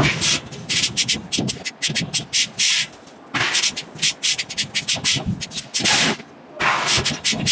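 Power forging hammer striking a red-hot iron block, in several runs of quick blows separated by short pauses.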